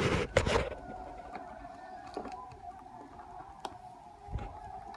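Handling noise as a camera is picked up and set down, a brief rustling clatter at the start, then a faint steady hum with a few light clicks.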